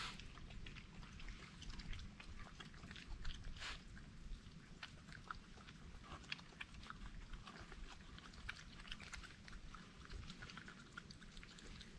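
Wild animals, an opossum or raccoons, chewing and crunching food, heard as many faint, irregular little clicks and smacks.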